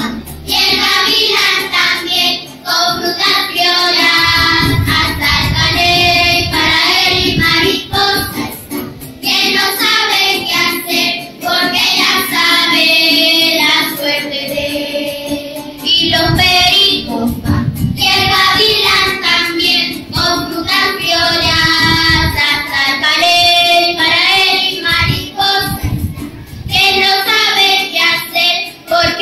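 A children's choir singing, phrase after phrase with brief breaks between.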